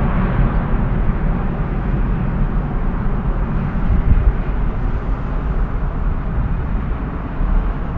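Airbus A330-200 jet engines after takeoff: a loud, steady low rumble that slowly fades as the airliner climbs away.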